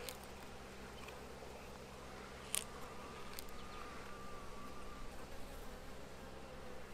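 Honeybees buzzing around an open hive: a faint, steady hum, with one short click about two and a half seconds in.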